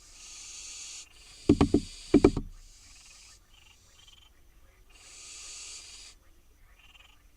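Barn owl fledglings giving long, harsh hissing begging calls, each lasting about a second, four times. A quick run of loud knocks on wood breaks in between the first two and the third hiss.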